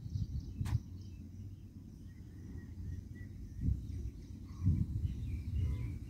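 Outdoor ambience of an uneven low rumble with faint, short bird chirps scattered through, and one sharp click under a second in.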